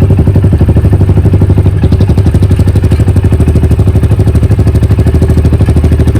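Vento Rocketman 250 motorcycle's single-cylinder engine idling through its stock exhaust with the silencer baffle pulled out: a loud, even putter of rapid pulses.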